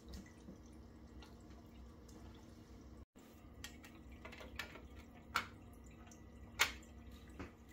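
Faint aquarium water moving and dripping under a steady low hum. In the second half come several light plastic clicks and taps as the slotted plastic lid is set onto a clear acclimation box hanging in the tank.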